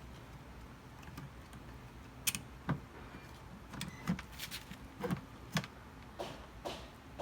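Irregular clicks and light knocks of small parts and tools being handled during a repair, about nine of them from about two seconds in, over a low steady hum.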